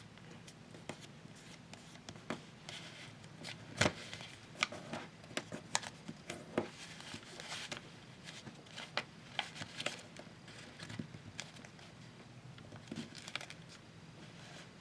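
Sheet of paper being folded and creased by hand: soft crinkles and sharp little creasing clicks, most of them in the middle of the stretch.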